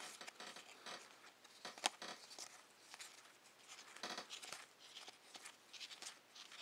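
Faint rustling and flicking of cardboard trading cards being leafed through by hand, with a sharper click about two seconds in.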